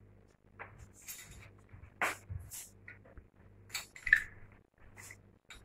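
Faint, scattered clicks and light taps of kitchen utensils and containers being handled, over a low steady hum.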